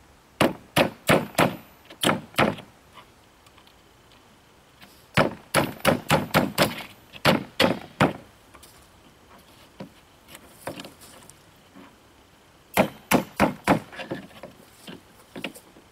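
Hand tool striking wood, most likely a hammer on the OSB panel and its framing: three runs of quick, sharp knocks, about three or four a second, with pauses between.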